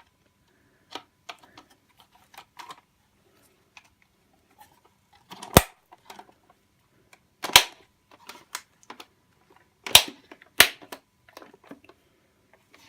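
Plastic parts of a Ford Galaxy instrument cluster being handled and pressed together: small clicks and rattles throughout, with four loud, sharp snaps in the second half as the casing's clips snap home.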